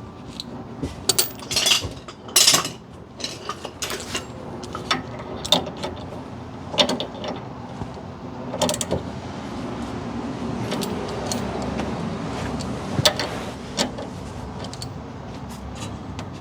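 Hand tools working on suspension bolts: a ratchet wrench clicking in runs, with irregular metal clinks of tools against the arm hardware.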